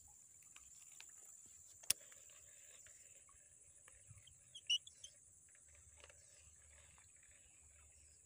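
Faint outdoor ambience: a steady high hiss, one sharp click about two seconds in, and a brief high chirp a little past the middle.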